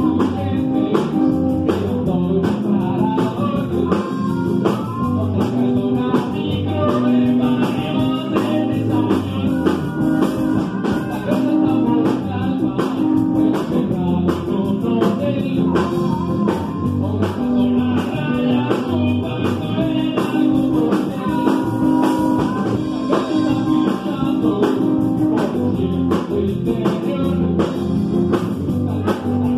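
Live rock band playing a blues-rock song, with drum kit, electric bass and electric guitar under a singer's voice.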